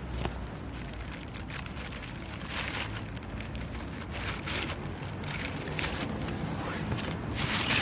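Dry leaves and twigs rustling and crackling in irregular bursts as a cat pushes its head into leaf litter and undergrowth, over a low rumble, with a louder rustle near the end.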